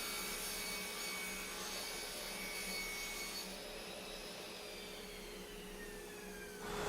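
Miter saw running, then its motor and blade winding down, with a whine that slowly falls in pitch over the second half.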